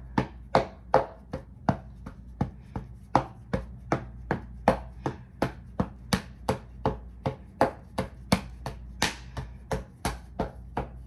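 An even run of sharp, crisp strikes, about three a second.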